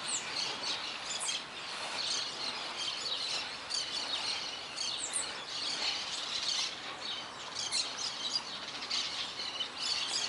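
Many small birds chirping and calling at once, quick high chirps and short falling whistles overlapping without a break.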